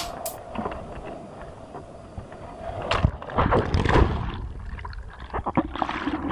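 Water lapping and splashing around a surfboard, close to a board-mounted camera. About three seconds in it turns loud and churning as spray washes over the lens, then stays choppy.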